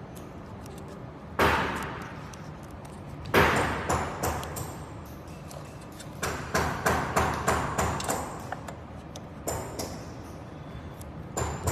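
Sharp knocks and taps of hard objects, single ones spaced a few seconds apart and a quick run of about eight about six seconds in, typical of tools and parts being handled during a repair.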